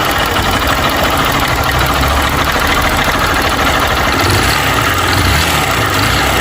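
Single-cylinder 150 cc motorcycle engine idling with a loud mechanical clatter from inside the engine, despite a rebuild two months ago. The mechanic places the noise in the rocker arms and their rollers and hopes it is not the connecting rod.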